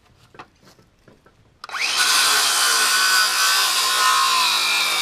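Electric drill spinning up about a second and a half in and running steadily under load, enlarging bolt holes for the feeder brackets.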